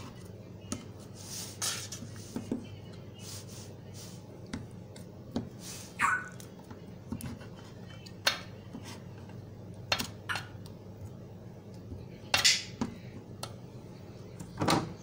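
Knife clinking and scraping against a metal baking tin as set peanut-jaggery chikki is cut and the pieces separated: scattered short clinks a second or more apart, the loudest near the end, over a low steady hum.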